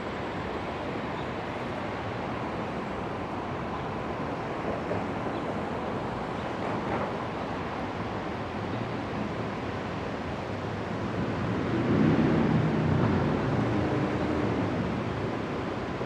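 Steady city street traffic noise. About twelve seconds in, a vehicle's engine grows louder with a low hum for a few seconds, then fades.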